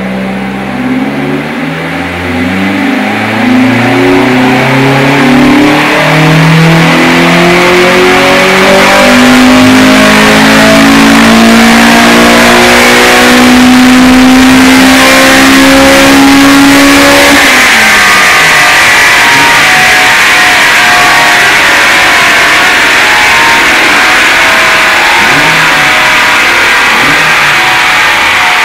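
Honda B18C four-cylinder of a DC2 Integra Type R, breathing through a cold air intake, 4-1 manifold, decat and Tanabe Concept G exhaust, pulling at full throttle on a rolling-road dyno. Its note climbs steadily in pitch for about seventeen seconds up the rev range, then drops sharply as the throttle is closed. A steady loud rush of the car coasting down on the rollers follows.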